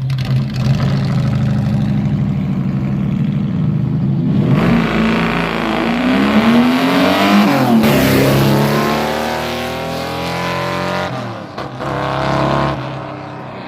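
Group 44 Jaguar E-type race car's V12 engine, running steadily at first, then revved hard from about four and a half seconds in. Its pitch climbs and falls several times.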